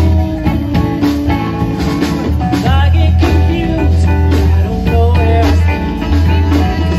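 Live band playing through a PA: electric guitars over a drum kit, with strong pulsing low notes.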